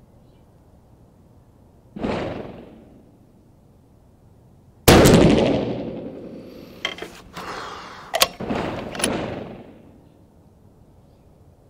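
Rifle fire ringing off the walls of a covered range: one very loud, close shot about five seconds in, typical of a 6.5 PRC rifle with a muzzle brake, with a lesser shot about two seconds in and a few shorter sharp cracks between about seven and nine seconds.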